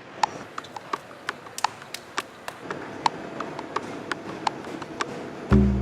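Irregular sharp taps and knocks, two or three a second, some with a brief ring. Low music starts just before the end.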